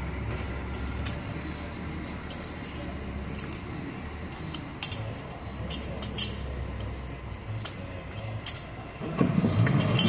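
Light metallic clinks and clicks from a ratchet strap's steel buckle being handled, over a steady low hum. Louder scraping and rattling near the end as the strap is pulled through the ratchet.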